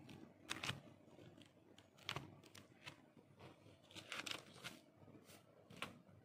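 Faint crinkling and rustling of a brown paper mailer and the pages of a ring-bound journal being handled, in several brief rustles a second or two apart.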